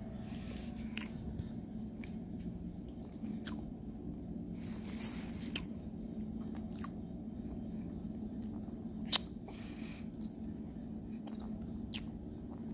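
Someone chewing dry cornstarch close to the microphone: scattered crunchy clicks, with two sharper ones standing out, over a steady low hum.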